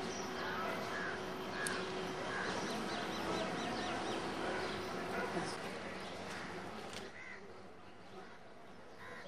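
Crows cawing several times over a busy outdoor background, the calls bunched in the first half; the background drops away about seven seconds in.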